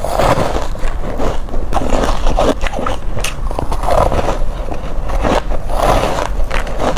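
Hard crushed ice being bitten and crunched between the teeth, close to the microphone: a dense run of crackles and snaps with a heavier crunching bite every second or two.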